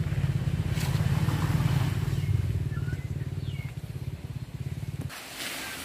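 A small engine running with a fast, even throb, swelling about two seconds in and cutting off abruptly about five seconds in.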